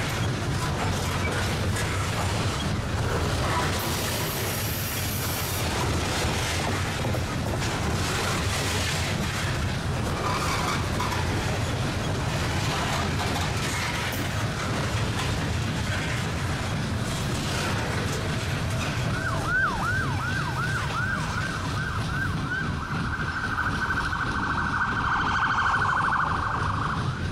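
Loaded coal hopper cars of a freight train rolling past close by: a steady low rumble of steel wheels on the rails with occasional clacks. About 19 s in, an emergency-vehicle siren starts in a fast rising-and-falling yelp and switches to a quicker warble from about 22 s until near the end.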